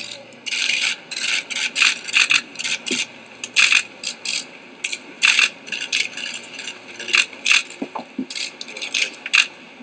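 Many camera shutters clicking in quick, irregular bursts, several clicks a second, as press photographers shoot a face-off.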